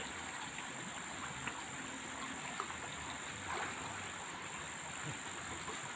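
Frogs croaking faintly at a pond, over a steady high-pitched buzz.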